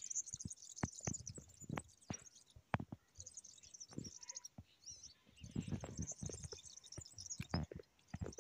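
Small birds twittering in quick high chirps that come and go, with scattered sharp clicks and low knocks of something being handled.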